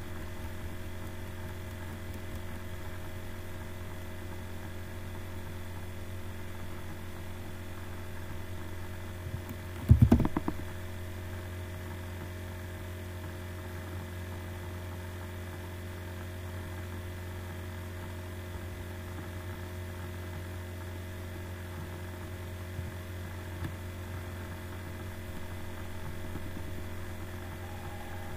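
Steady low electrical hum of the mains-hum kind, picked up by the recording, with one brief thump about ten seconds in.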